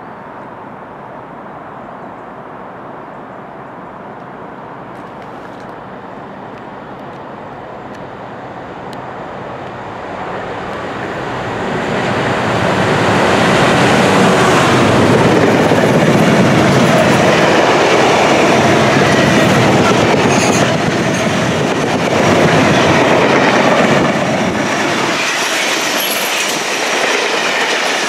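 GB Railfreight Class 66 diesel locomotive, a two-stroke V12, approaching and passing close by at the head of a loaded aggregate train. Its sound builds over about ten seconds and is loudest as it passes, followed by the loaded wagons rolling by over the rails.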